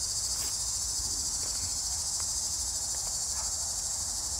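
Steady chorus of insects trilling, a continuous high-pitched drone from the summer woods.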